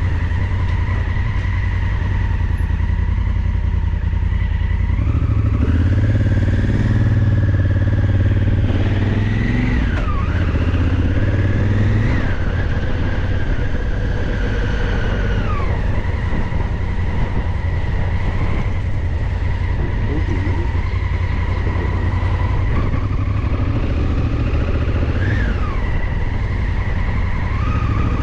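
Motorcycle engine and exhaust heard from the moving bike, running steadily with its pitch rising and falling several times as it speeds up and slows down. A steady high whine and a heavy low rumble run under it.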